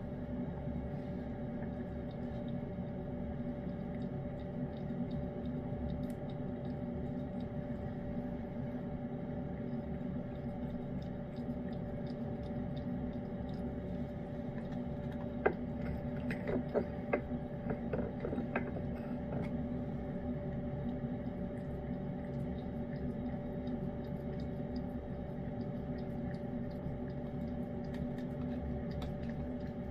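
A cat eating wet pate food, with a short run of clicks and smacks of licking and chewing about halfway through, over a steady electrical hum.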